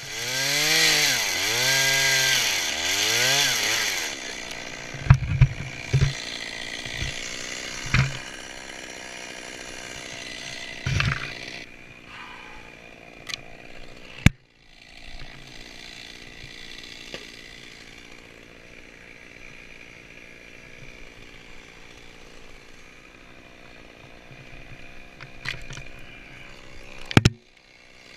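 Climber's chainsaw revved up and down about four times, then left idling steadily, with several sharp knocks as it is handled against the tree.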